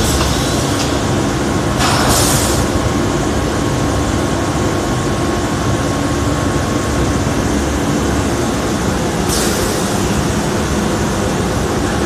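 Thermoforming vacuum packaging machine running with a steady mechanical noise. Two short bursts of hiss come through it, about two seconds in and again near the end.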